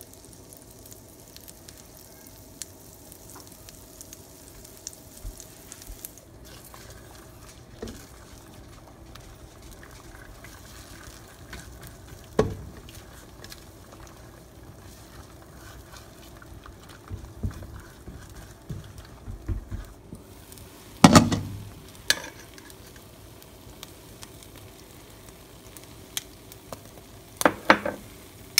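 Butter and beaten eggs sizzling in a frying pan while being stirred, with several knocks of utensils against the pan, the loudest about two-thirds of the way through.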